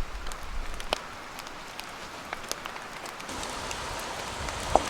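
Wood campfire crackling, with scattered sharp pops over a hiss that grows louder about three seconds in.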